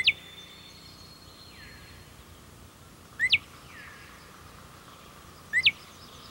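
Male northern cardinal calling: three short, sharp, down-sliding notes, one right at the start, one a little after three seconds in and one near the end, each heard as a quick double note over a faint outdoor background.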